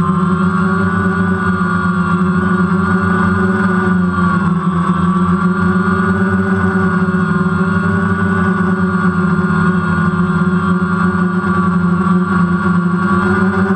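DJI Phantom quadcopter's four electric motors and propellers running steadily in flight, a close, loud whine heard from the GoPro mounted on the drone, with small wavers in pitch as it holds and adjusts its position.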